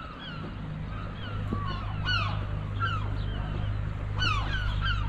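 Gulls calling: many short, downward-sliding cries from several birds, overlapping and repeated, over a steady low hum.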